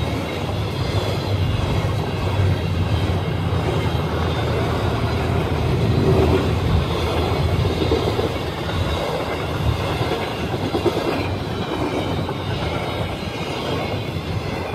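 CN freight train's cars rolling past with a steady, continuous rumble of steel wheels on the rails.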